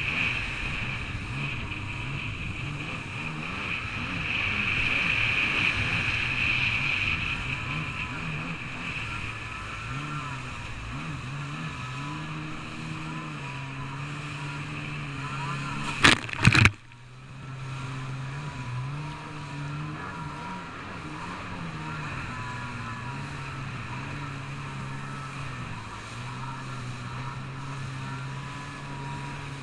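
Jet ski engine running, its pitch rising and falling with the throttle, with a steady high whine over it. About halfway through come two loud thumps close together, then a brief drop before the engine steadies again.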